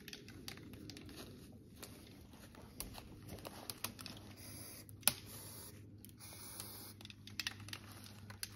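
Footsteps rustling and crunching through dry leaf litter and thin snow, with scattered light clicks and crinkles and one sharp click about five seconds in.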